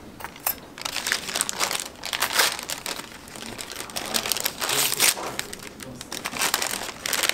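Crinkling and tearing of a paper-and-plastic gauze sponge packet as it is torn open by hand and the gauze pulled out, in irregular crackly bursts.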